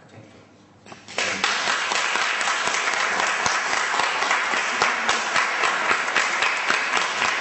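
A small audience clapping, starting about a second in and going on steadily.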